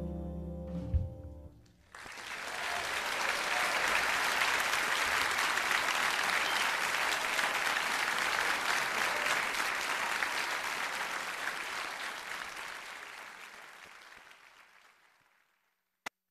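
A piece of music ends with a final low hit about a second in. Then a crowd applauds, swelling quickly and slowly fading out over about twelve seconds. A brief click comes near the end.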